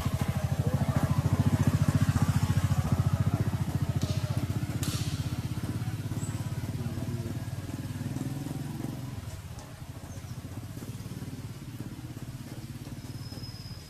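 A small engine running with a steady low drone, dropping to a lower level about nine and a half seconds in.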